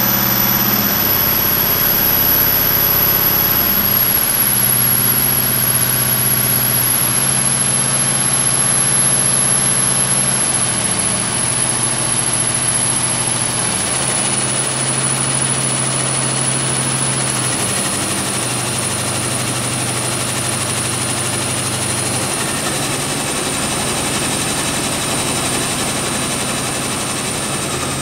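Scania DI16 16-litre V8 diesel engine running steadily on a test bench during its post-overhaul test run, with a thin high whine that slowly falls in pitch.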